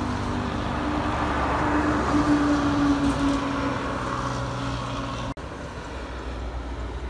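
Diesel tractor-trailer truck driving past, its engine drone swelling to a peak about two to three seconds in and then fading as it pulls away. Near the end the sound drops suddenly to a quieter, distant traffic rumble.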